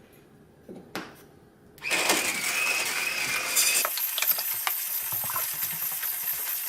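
MiiCoffee PT1 portable electric coffee grinder switched on about two seconds in, its motor running with a steady whine while it grinds coffee beans at a near-finest espresso setting, the beans crackling as they are crushed. A faint click of handling comes before it starts.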